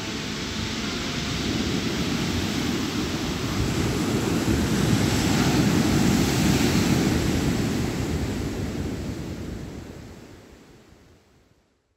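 Ocean surf breaking with wind, a steady rush that swells to its loudest midway and then fades out to silence near the end.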